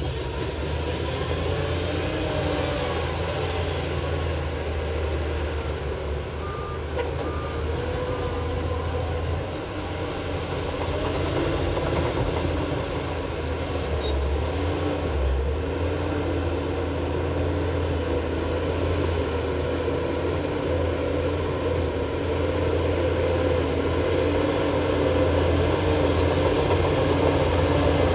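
Heavy diesel engine of a Shantui crawler bulldozer running steadily under load while pushing dirt. Three short beeps of a reversing alarm sound about seven seconds in.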